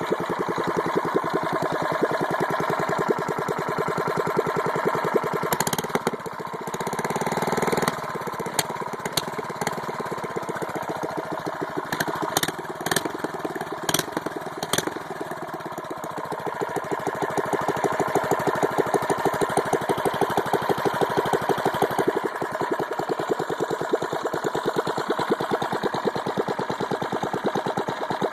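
Single-cylinder Briggs & Stratton 900 series OHV engine on a mini bike running with an even firing pulse. Its sound shifts briefly about six to eight seconds in, and a few sharp clicks come through around twelve to fifteen seconds in.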